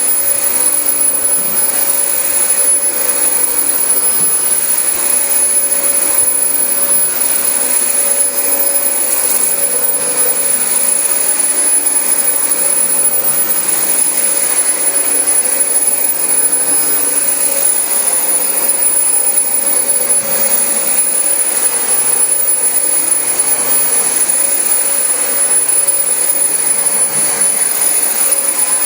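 Dyson DC25 upright vacuum cleaner running steadily while it is pushed over carpet: a loud rush of air with a thin, high-pitched motor whine.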